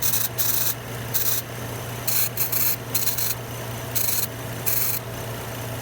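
An aerosol can of brake cleaner sprayed in a series of short hissing bursts at the back of an idling engine's intake manifold, with the engine's steady hum underneath. The spray is hunting for a vacuum leak at the intake manifold gasket: the cleaner drawn in through the leak brings the short-term fuel trims down.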